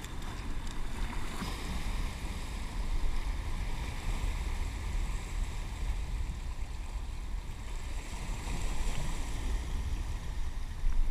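Wind buffeting the microphone in an irregular low rumble, over the wash of fast inlet water surging against the jetty rocks.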